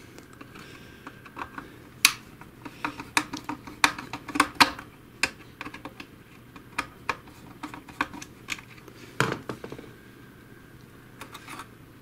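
Irregular plastic clicks and taps from hands working a small wire connector and sensor module loose inside an opened robot vacuum's plastic chassis. The louder clicks come about two seconds in and again a little after nine seconds.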